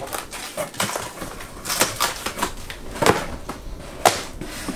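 A cardboard shipping box being opened and boxed Lego sets handled inside it: irregular rustles, scrapes and sharp knocks of cardboard, busiest in the second half.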